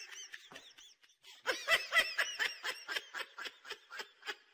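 A person laughing in a run of short, high-pitched giggles, about four a second, louder from about a second and a half in and trailing off near the end.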